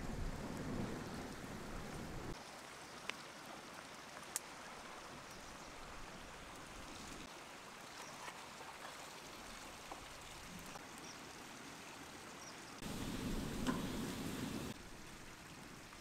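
Wood fire burning under a steaming wok: a steady hiss with a few sharp crackles. It is louder and fuller for the first two seconds and again for about two seconds near the end.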